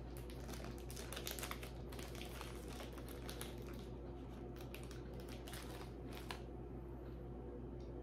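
Packaging crinkling as a piece of jewelry is unwrapped by hand: a dense run of small crackles that stops about six seconds in, over a steady low hum.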